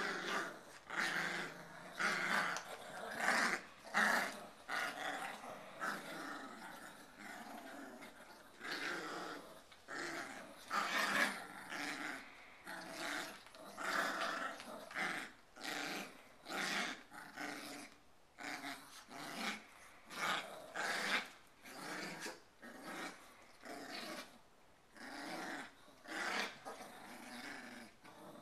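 Two Yorkshire terriers growling as they wrestle, in short rough bursts about once a second.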